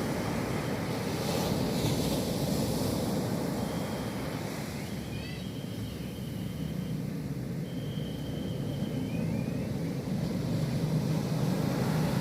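Ocean surf: waves breaking and washing up the beach in a steady low rumble that swells louder near the end.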